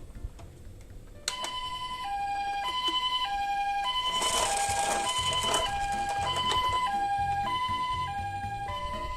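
Japanese ambulance two-tone 'pee-po' siren, a higher and a lower tone alternating about every half second. It starts with a click a little over a second in, and a rushing hiss swells over it midway.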